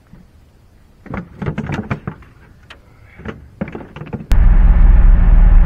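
Clicks, knocks and clatter from about a second in, as a cooler lid and gear are handled in a small fishing boat. About four seconds in, a loud, steady, low drone cuts in suddenly: engine and road noise of a moving pickup truck, heard from inside the cab.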